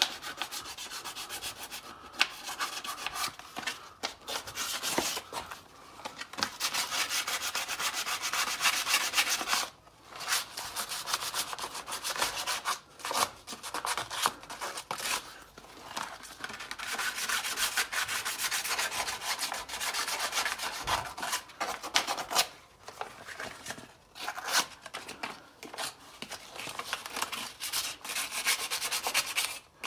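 Sandpaper rubbed by hand in quick back-and-forth strokes over a Porsche 996 brake caliper, a steady scratchy rasp broken by a few short pauses, taking the old peeling lacquer and paint off before the caliper is painted.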